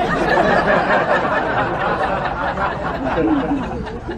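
A crowd of many people laughing together, like a studio-audience laugh track, starting abruptly and tapering near the end.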